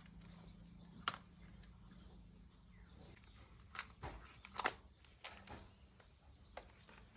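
Quiet room with a faint steady low hum, broken by a few short sharp clicks, the clearest about a second in and near the five-second mark, and some faint short chirps.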